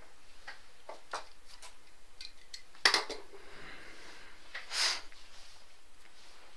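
Items being handled on a tabletop while a card break is set up: scattered light clicks, one sharp hard clack about three seconds in, and a short rustle just before five seconds.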